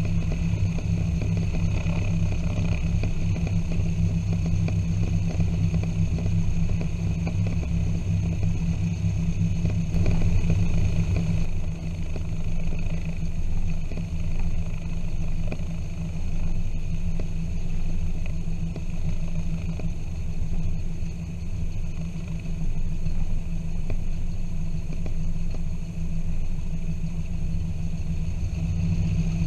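Piper PA-23 Apache's twin piston engines and propellers running at low taxi power, a steady low drone. The engine note eases slightly about twelve seconds in.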